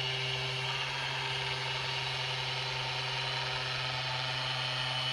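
Rapid Release Pro 2 handheld vibration therapy instrument running with a steady, unchanging hum.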